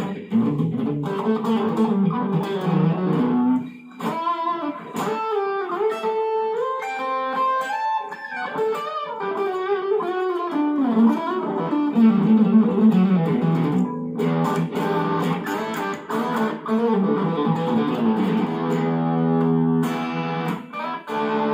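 Japanese-made Ibanez RG570 electric guitar played through an amplifier: lead lines of fast runs and held notes, with notes bent and wavering in pitch in places.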